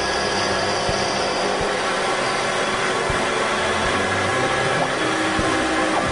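CNC milling machine running, its end mill cutting the steel webs of a model six-cylinder boxer engine crankshaft: a steady machining noise with a constant whine.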